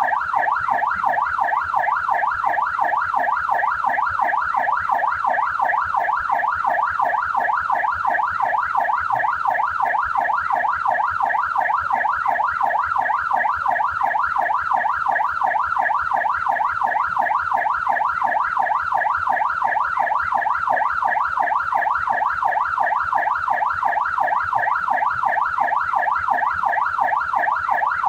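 Australian police car siren sounding continuously, its pitch sweeping rapidly up and down about four times a second in an unbroken warble.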